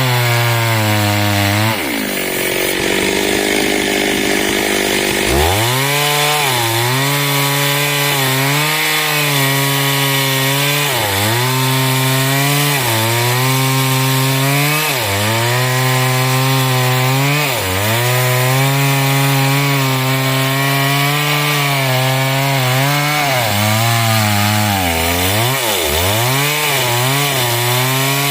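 Stihl chainsaw running hard and cutting through wood. Its pitch sags and recovers every few seconds as the chain bites under load, and drops right down about two seconds in before revving back up near five seconds.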